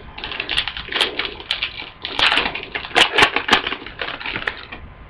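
Football trading cards and their foil pack wrapper being handled, a dense run of irregular crinkling and sharp clicking snaps, loudest about three seconds in.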